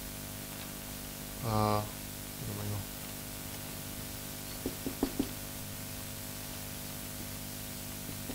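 Marker writing on a whiteboard, with three short squeaks about five seconds in, over a steady electrical hum. A man gives a brief hummed sound about one and a half seconds in.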